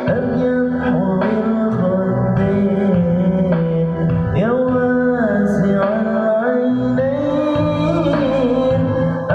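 Sholawat, an Islamic devotional song, sung in a held, gliding melody over steady percussion strikes and accompaniment, played through a sound system during a sound check.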